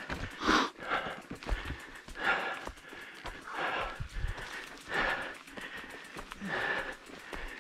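A person breathing hard and rhythmically from exertion, with about six loud, rasping breaths roughly every second and a bit.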